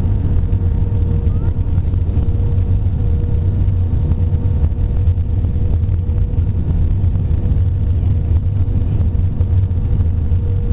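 Cabin noise of a jet airliner on final approach with flaps extended: a steady, loud blend of engine and airflow noise with a faint steady humming tone running through it.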